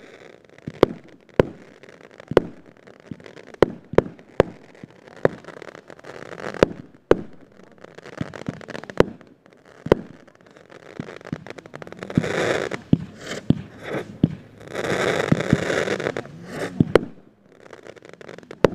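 Aerial fireworks going off in a rapid, irregular series of sharp bangs as the shells burst, with two longer stretches of crackling about twelve and fifteen seconds in.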